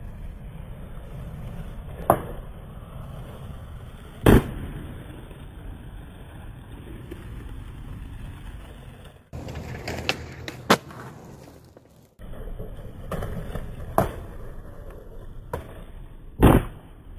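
Skateboard wheels rolling on concrete with a steady rumble, broken by sharp clacks of the board popping and landing several times; the loudest slaps come about four seconds in and near the end. The sound drops out briefly twice where clips are spliced.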